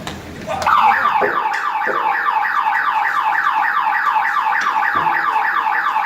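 Electronic alarm siren wired to a CCTV DVR, set off by an intruder at the door. It starts about half a second in and sounds a rapid, loud whoop, about four falling sweeps a second, with a few dull knocks underneath.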